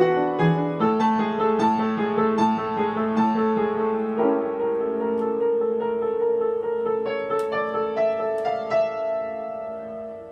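Piano playing a passage: a run of repeated struck notes in the first few seconds, then longer sustained notes with a few high notes, ending on a held chord that cuts off abruptly.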